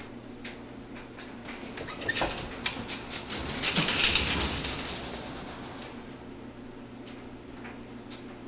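Wire laundry cart rattling as it is shoved and rolls across the floor: a quick run of clicks from about two seconds in builds to a louder rattle about four seconds in, then fades out by about six seconds.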